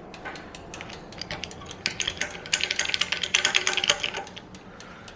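A run of quick, irregular clicks and clinks of small hard objects, thickest about two to four seconds in.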